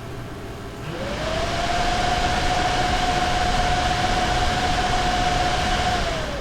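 Nvidia GeForce RTX 2070 Super graphics card fan surging in auto fan mode: about a second in it spins up into a loud rushing whoosh with a rising whine, holds steady, then spins back down near the end. The fan speeding up and down on its own is the fault being shown.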